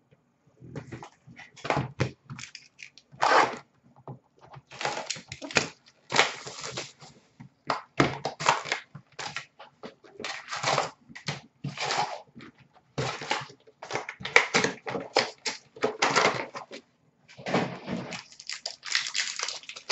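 Cardboard trading cards being handled: irregular rustles, slides and light slaps of card stock as cards are sorted and set down in stacks.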